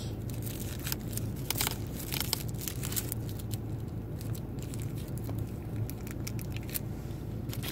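A plastic food wrapper being handled and torn open, crinkling and crackling in many short irregular snaps, with a steady low hum underneath.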